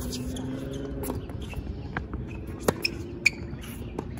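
Tennis rally on a hard court: sharp pops of rackets striking the ball and the ball bouncing, several in all, the loudest a little before and just after the middle.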